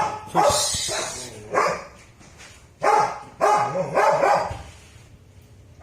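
A dog barking repeatedly, about six barks in uneven bursts over roughly four seconds, then stopping.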